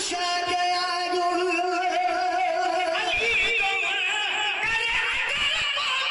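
Devotional singing of a Sindhi molood (manqbat): a long held note for about three seconds, then a higher, quavering ornamented line.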